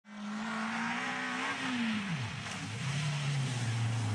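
Rally car engine, a Renault Clio, running hard at high revs, then dropping sharply in pitch about halfway through before settling at a lower, steady pitch, over a constant rush of noise.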